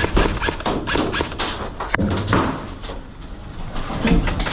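A rapid, irregular string of sharp clicks and low thuds, several a second.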